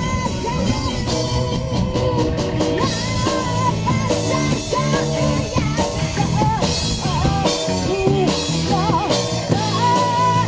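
Live rock band playing: a woman singing over two electric guitars and a keyboard, with drums.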